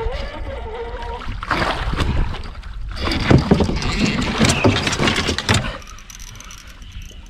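A large tarpon thrashing and splashing in the water against the side of a skiff as it is grabbed by hand: a burst of splashing about a second and a half in, then a longer, louder bout of splashing and water churning from about three to five and a half seconds in. A man's wavering voice sounds briefly at the start.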